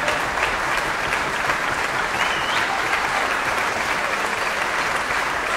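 Concert hall audience applauding steadily, a dense clapping that does not let up. About two seconds in there is a short high tone that rises and wavers.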